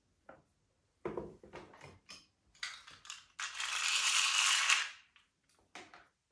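Small clicks and handling noises on a rubber-powered model plane, then a whirring, ratchety mechanical noise lasting about a second and a half.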